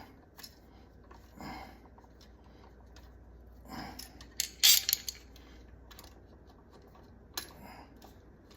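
Scattered small clicks and clinks with brief rustles from an electrical outlet and its wires being handled, the loudest cluster about halfway through.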